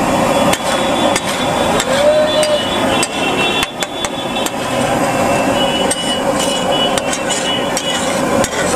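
Metal spatula repeatedly striking and scraping a large flat metal griddle while mashing and chopping pav bhaji vegetables. The clanks come in quick, irregular strokes over continuous street noise and voices.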